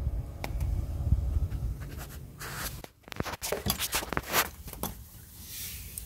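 Handling noise from a hand-held camera being moved about: a low rumble for the first half, then a run of scrapes, rustles and sharp clicks.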